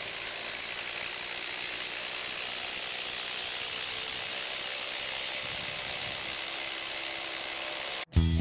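Bosch IDH182 brushless impact driver hammering steadily as it drives a 5/16-by-6-inch screw into stacked pine boards, stopping abruptly near the end once the screw is seated.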